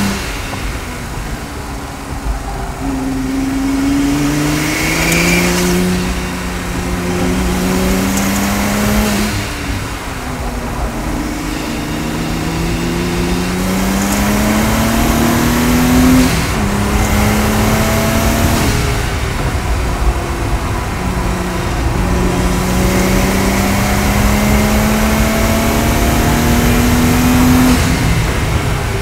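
Stage 3 tuned Audi S4 engine and exhaust under hard acceleration on a race track, heard from inside the car: several long pulls, each rising in pitch and then dropping suddenly, the last and loudest one cut off near the end.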